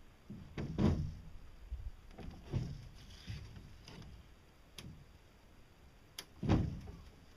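A few dull thumps and knocks, the loudest about a second in and another near the end, with a couple of sharp clicks between them: a metal outrigger arm being handled and bumped against a boat hull.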